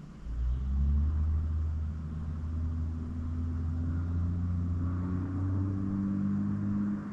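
A low, steady rumbling drone with a strong deep hum and a few fainter tones slowly rising in pitch; it breaks off briefly near the end.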